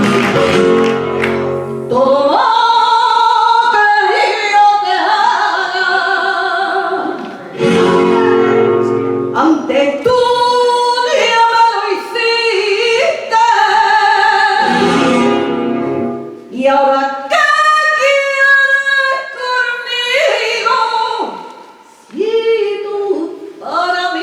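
A woman singing copla in long phrases with strong vibrato over an instrumental accompaniment; the accompaniment plays alone for the first two seconds and comes up again in short passages between sung phrases.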